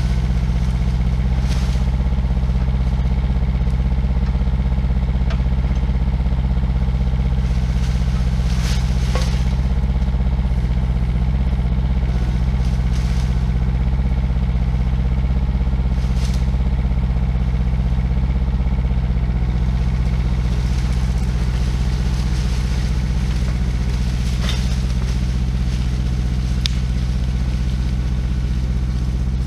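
IHI 9VX-3 mini excavator's diesel engine running steadily under work. A few sharp cracks and knocks are heard along the way as the bucket drags a fallen log through brush.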